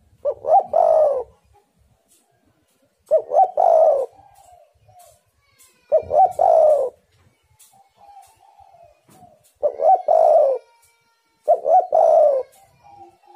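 Spotted dove (tekukur) cooing: five loud coo phrases a few seconds apart, each about a second long, made of two short notes and a longer drawn-out note, with soft fainter notes in the gaps.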